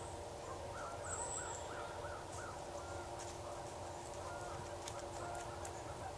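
Faint wild animal calls from the woods: a quick string of about five short calls about a second in, then a few scattered single calls, over a steady background drone.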